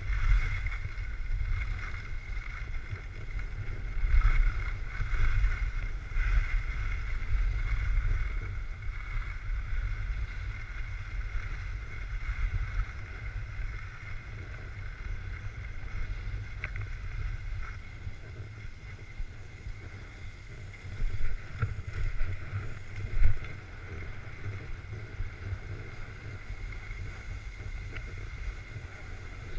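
Wind rumbling on a GoPro's microphone while skiing, over a steady hiss of skis sliding on packed snow, with a few louder bumps about three-quarters of the way through.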